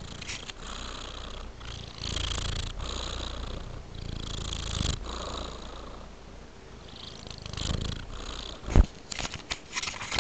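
Domestic tabby-and-white cat purring in its sleep, the purr swelling and easing with each slow breath. Near the end, a sharp thump and then a few quick clicks.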